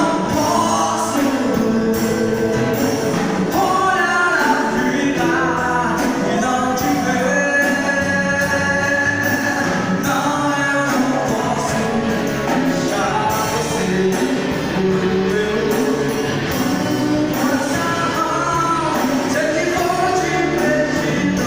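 Gospel band playing a song live: a sung vocal line over drums, bass, keyboards and guitars.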